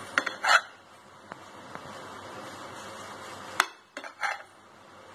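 Kitchen knife knocking and scraping against a ceramic plate while crusts are cut off slices of bread: a few light clinks, the sharpest about three and a half seconds in, over a steady faint hiss.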